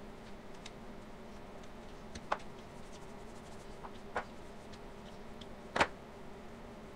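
Handling sounds of rolling out bread dough with a dough roller on a plastic cutting board: a few light knocks, the loudest just before six seconds in as the roller is set down on the counter. A steady low hum runs underneath.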